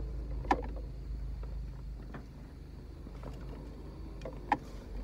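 Low steady rumble of a car rolling slowly, heard from inside the cabin, with scattered light ticks and two sharp clicks, one about half a second in and one near the end.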